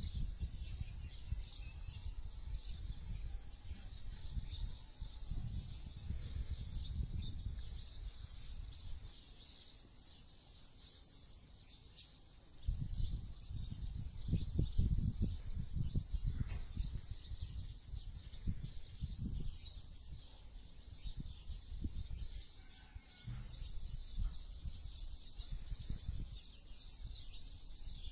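Birds chirping continuously in a high, dense chorus, over a low gusty rumble that swells and fades, loudest a little past halfway.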